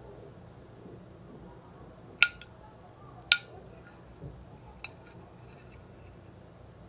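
Plastic spoon clicking sharply against a ceramic plate as it cuts into a soft gelatin jelly: two clicks about a second apart starting about two seconds in, then a fainter third a second and a half later.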